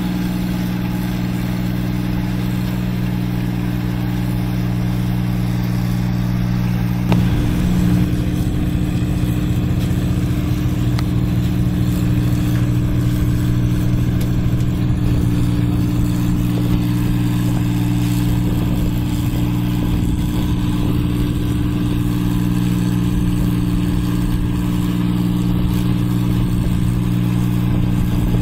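New Holland 8060 combine harvester running steadily while harvesting rice: a continuous engine drone with the noise of its working machinery. About seven seconds in there is a single knock, after which a deeper low rumble joins the drone.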